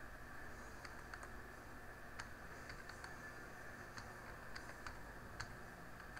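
Faint computer keyboard keystrokes, single taps at an unhurried, uneven pace, over a steady low hiss.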